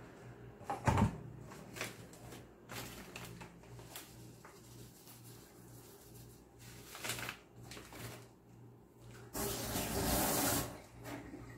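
Kitchen tap running into a sink for about a second and a half near the end, the loudest sound. Before it, a clunk about a second in, then scattered knocks and rustling as a spoon, bowl and packet are handled.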